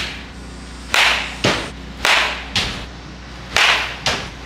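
Baseball bat hitting balls off a batting tee in a batting cage: a series of sharp cracks, about one a second and some in quick pairs, with one duller thump among them.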